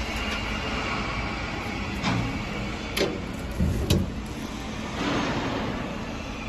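A boat's hatch lid being handled and lifted: about four knocks and clunks between two and four seconds in, over a steady background hiss.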